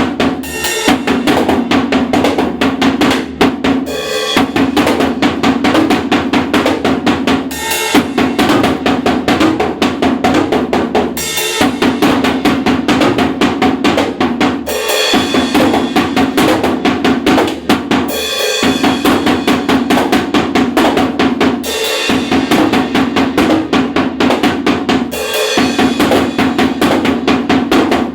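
Drum kit playing a steady, fast groove of bass drum, snare and cymbals, with a crash accent about every three and a half seconds. It is played as a two-minute countdown cue for the end of a test.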